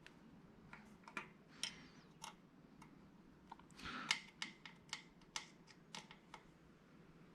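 Faint, irregular clicks and small metallic taps from hardware being handled and fastened during assembly of the plotter stand, with a couple of brief rustles.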